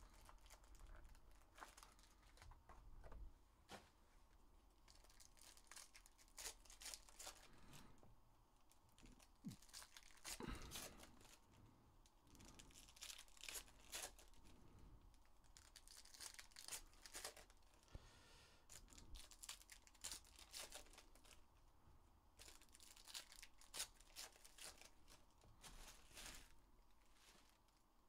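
Panini Rookies & Stars football card packs being torn open by hand, the wrappers crinkling and tearing in faint bursts of crackling on and off, with cards handled between them.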